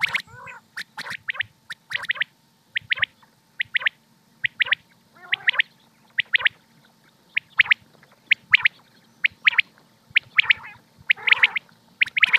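Common quail calling over and over: short, sharp high notes in quick groups of two or three, about one group a second, with a few lower, rougher calls in between. A faint steady hum runs beneath, as from a played-back recording.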